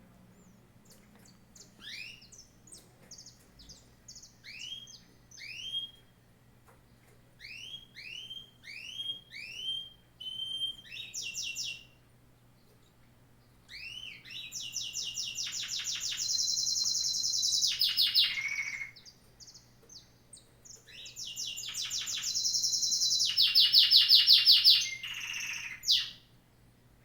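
Songbird singing: a run of short, sweeping whistled notes, then two long, rapid trills, the second the loudest.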